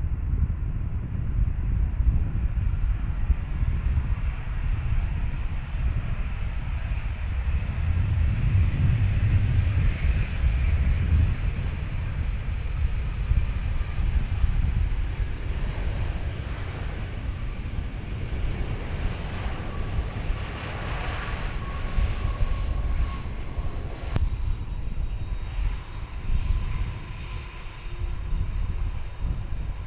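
Jet airliner engines running as the aircraft passes: a deep rumble throughout, with a high engine whistle that grows strongest about two-thirds of the way through.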